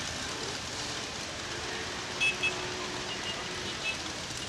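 Steady hiss of wind on the microphone of a kite-borne camera, with a couple of short high chirps about two seconds in.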